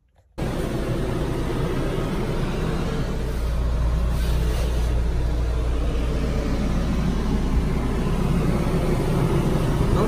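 RV rooftop air conditioner running, a steady, very loud whooshing hum with a deep drone underneath, starting suddenly about half a second in.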